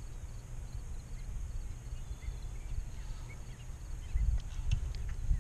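Wind buffeting the microphone in an uneven low rumble, with a few faint ticks from about four seconds in.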